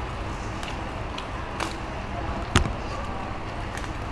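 Light clicks and one sharper knock, about two and a half seconds in, from handling food and dishes while eating, over a steady background hiss.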